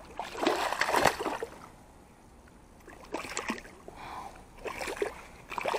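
Pike splashing and thrashing in shallow water at the bank while being landed by hand, in three bouts: during the first second and a half, around three seconds in, and again shortly before five seconds.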